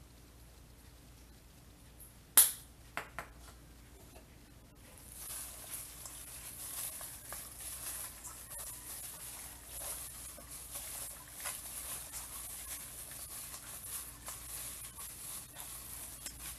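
A hand mixing sliced pork in a wet soy-sauce marinade in a stainless steel bowl: a steady wet, crackly squishing from about five seconds in. Before it, one sharp click and then two faint ones.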